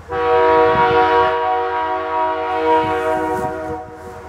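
CN C44-9W freight locomotive's air horn sounding one long, loud blast: a steady chord of several notes that starts abruptly and cuts off just before four seconds.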